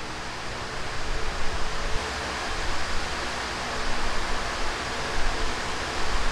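Steady rushing noise, like moving air, that swells and eases a little in level.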